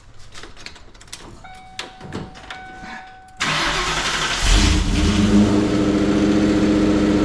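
Ford SN95 Mustang being started: a few clicks and steady electronic tones, then the starter cranks a little over three seconds in. The engine catches about a second later and settles into a loud, steady idle through its catless exhaust.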